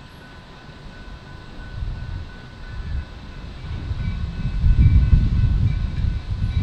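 Diesel locomotive approaching with a low rumble that grows louder about four seconds in.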